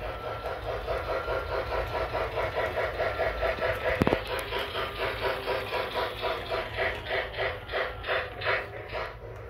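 Battery-powered Lionel Pennsylvania Flyer G-gauge toy steam locomotive running along plastic track, making an even rhythmic pulsing of about three to four beats a second, with one sharp click about four seconds in.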